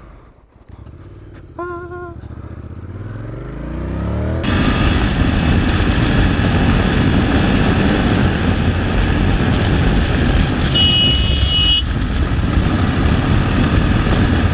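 Motorcycle engine accelerating, its pitch rising. About four seconds in it changes abruptly to a motorcycle cruising at highway speed: a steady engine drone under heavy wind rush. A brief high-pitched tone sounds about eleven seconds in.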